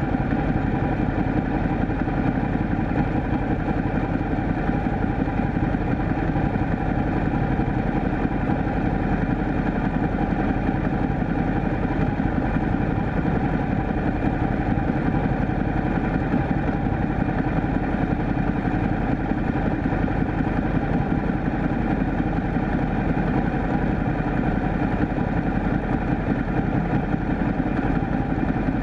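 Ducati Multistrada motorcycle engine idling steadily.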